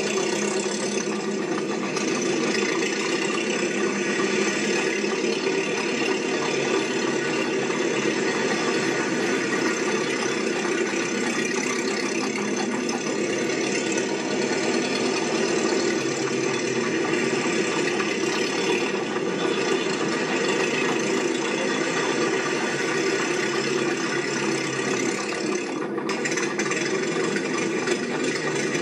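A steady mechanical running noise with a rattle, unchanging in level.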